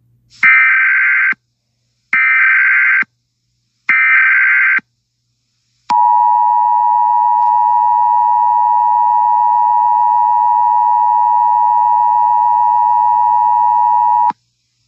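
Emergency Alert System header tones: three separate one-second bursts of harsh digital data tones, then the two-tone EAS attention signal. The attention signal is a steady, shrill dual tone held for about eight seconds that cuts off suddenly, announcing an emergency alert (here a tornado warning).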